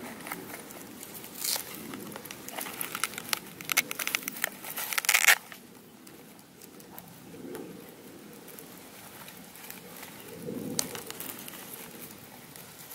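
Hands handling a cardboard model airplane and tucking wiring into its fuselage: crinkling, crackling and clicking, busiest in the first half and cutting off about five seconds in, followed by fainter rustling.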